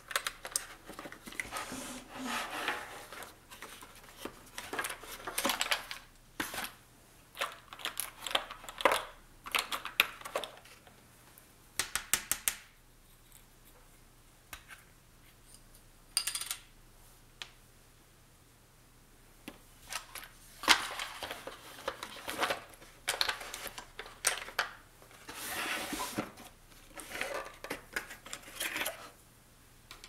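Hands rummaging through a drawer of small plastic containers, with clusters of sharp clicks and clattering of small hard objects, a quick run of clicks about twelve seconds in and a quieter stretch after it.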